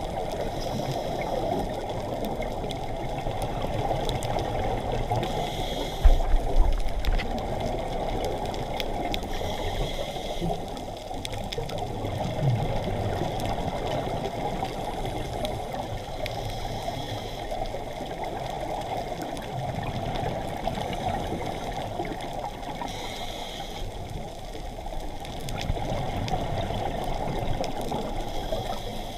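Underwater sound picked up through a dive camera's housing: a steady, muffled water rush with scattered faint clicks, a soft hiss coming back every six seconds or so, and a low knock about six seconds in.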